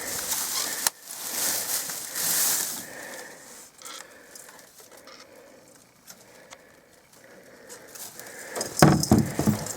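Rustling and crackling from objects being handled and shifted, then a quieter stretch, then a cluster of loud knocks near the end, like something being set down or bumped.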